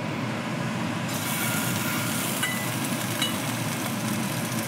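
Kitchen range hood fan running steadily: a low hum under an even rush of air.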